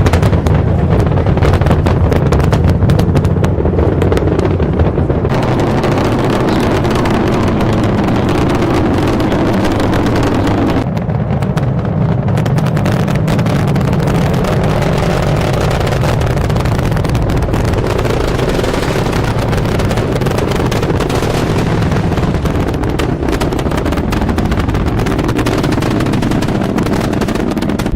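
Space Shuttle launch: the loud, continuous roar of the solid rocket boosters and main engines during ascent, with a rough crackle. The character of the roar changes abruptly about five and eleven seconds in.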